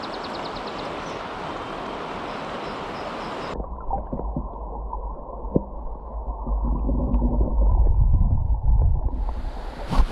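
Small stream running over rocks, then about three and a half seconds in the sound turns muffled and deep as the microphone goes underwater: a low gurgling rumble with knocks and churning as a brook trout is lowered back into the water by hand. The open-air stream sound returns just before the end.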